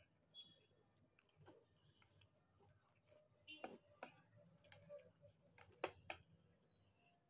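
Faint, scattered clinks and scrapes of forks against plates as two people eat pasta quickly, over near silence.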